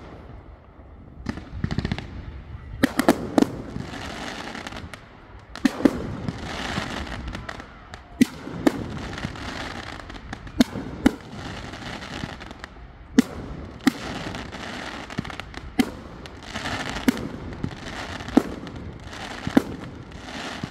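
Aerial fireworks going off: a long run of sharp bangs at uneven intervals, mostly a second or two apart, with a continuous hiss between them.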